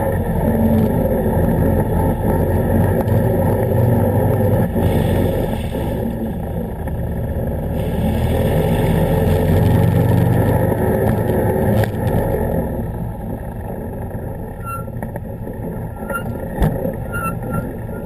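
Can-Am ATV engine running under throttle while the machine is ridden through water, with water splashing and spraying against the wheel well. The engine eases off and the sound gets quieter after about twelve seconds, and there is a sharp knock near the end.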